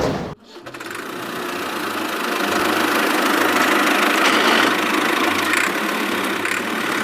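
A small motor-driven machine running steadily, a noisy whir that builds up over the first couple of seconds, after a short loud burst at the very start.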